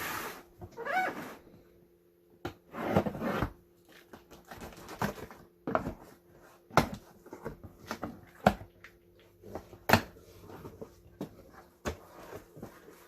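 A cardboard shipping box being opened and unpacked by hand: rustling and scraping of the box and packing, with several sharp clicks and knocks.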